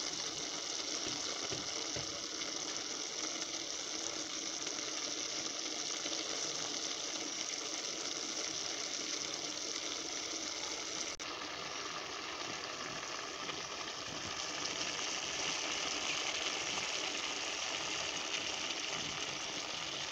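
A pot of potatoes and kale simmering in a little water, giving a steady hiss with a short break about halfway through.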